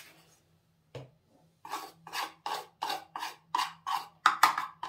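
Metal spoon scraping and stirring in a bowl: about ten short rasping strokes, roughly three a second, after a single click about a second in.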